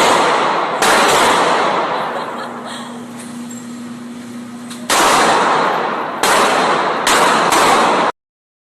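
Gunshots on a firing range: about six shots, the first two under a second apart, then a pause of about four seconds, then four more in quick succession. Each shot is followed by a long reverberating decay.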